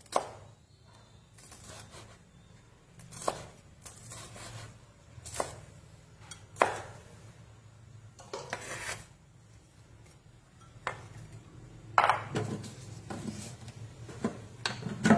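Kitchen knife slicing red chilies on a plastic cutting board: single, irregular knocks of the blade on the board, a second or two apart.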